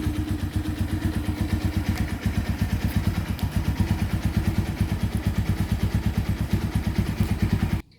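Honda Tiger motorcycle's single-cylinder four-stroke engine idling steadily with an even, fast pulsing beat, stopping abruptly near the end.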